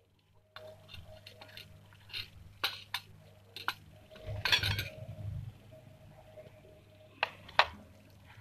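Clay pots and a clay diya clinking and knocking against a steel plate as they are handled and set down: a string of sharp clinks, the loudest cluster about halfway through and two more sharp clinks near the end.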